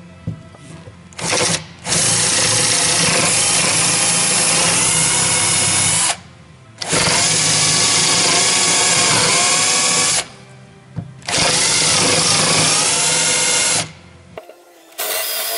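Cordless drill boring out old screw holes in the fibreglass laminate of a cockpit floor. It runs in three long spells of a few seconds each with short pauses between, the motor's whine shifting in pitch as the bit bites.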